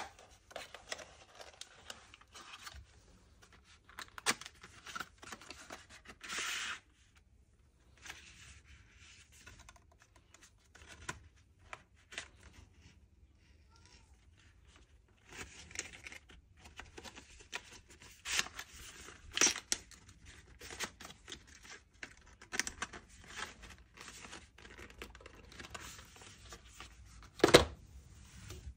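Packaging being handled and opened by hand: irregular rustling and tearing, with several sharp clicks and taps and a quiet stretch about halfway through.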